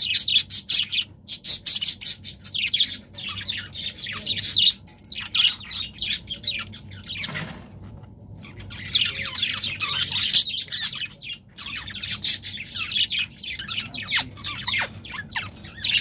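Budgerigars chattering in a run of rapid high chirps and short squeaky trills, easing off for a couple of seconds midway.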